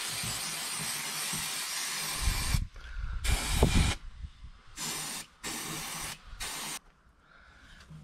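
Aerosol can of spray adhesive hissing: one long spray of about two and a half seconds, then a shorter spray with a low rumble under it, then three short bursts, the last very brief.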